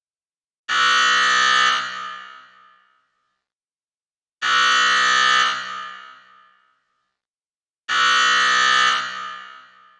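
Basketball scoreboard buzzer sounding three times, each a harsh, steady blast of about a second that dies away in an echoing tail, a few seconds apart.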